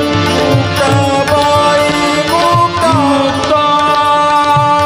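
Live Marathi abhang (devotional song) with a male singer's voice sliding through a melodic phrase over harmonium and tabla keeping a steady rhythm. About halfway through, the melody settles onto held notes.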